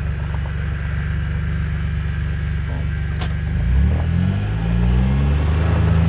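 Side-by-side utility vehicle's engine running at low speed, then revving up and holding a higher pitch as it speeds up about three and a half seconds in. A single sharp click a little before that.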